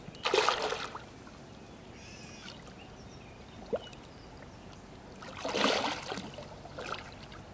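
Hooked flathead catfish splashing and thrashing at the water's surface beside the boat, in two bursts: one just after the start and a longer one about five and a half seconds in.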